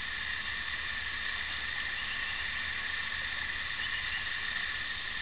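Steady, even background hiss with no distinct sound event.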